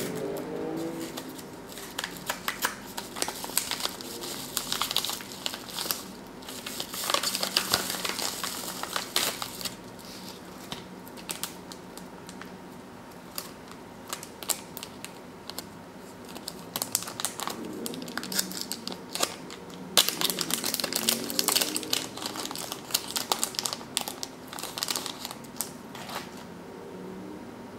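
Paper and plastic packaging crinkling and rustling in the hands as a small part is unwrapped from a padded envelope, in irregular spells of dense crackling with quieter stretches between.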